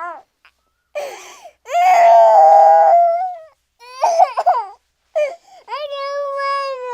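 Cartoon sound effect of a baby crying: a string of wails, the loudest a long one about two seconds in, then short sobbing cries and a long held wail near the end that falls in pitch as it trails off.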